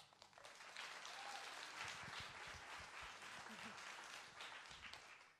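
Audience applauding, faint, fading out near the end.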